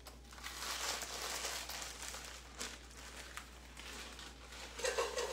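Frozen chopped onions being tipped from a plastic bag into a pot of hot butter: crinkling plastic over a steady hiss, with a few sharp clicks.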